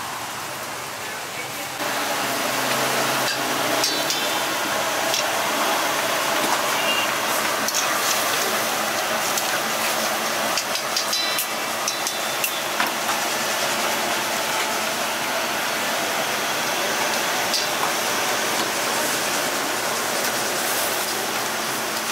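Busy street-food kitchen noise: a steady hiss of cooking with scattered clicks and clinks of utensils and indistinct voices, louder from about two seconds in.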